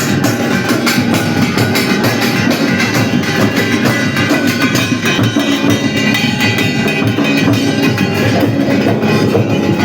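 Bhagoria festival dance music with a fast, steady drum beat.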